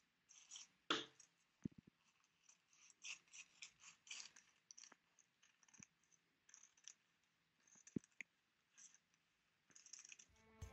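Small scissors cutting through tissue paper: a quiet, irregular run of short snips and paper rustles, with a couple of sharper clicks of the blades, one about a second in and one near eight seconds.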